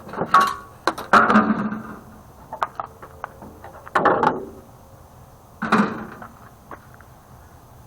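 Thin sheet-steel microwave casing being handled and set down, clanking and rattling in four separate bursts with a brief metallic ring.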